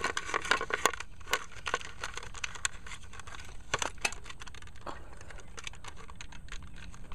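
Irregular clicks, taps and rustling of parts being handled as the fuse and battery are fitted back into an airsoft electric gun (AEG).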